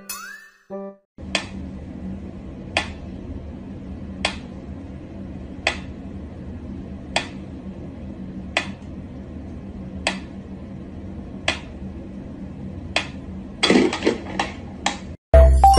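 Mechanical pyramid metronome ticking slowly and evenly, about one tick every second and a half. Near the end come a louder scuffle and a few quick knocks as a cat paws at it.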